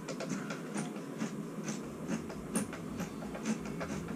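Hand screwdriver driving a screw down through a toilet flange to anchor it to the floor, heard as a run of small irregular clicks and ticks.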